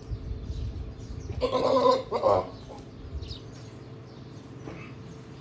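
A Sirohi goat bleating: one call of about half a second, followed by a short second call.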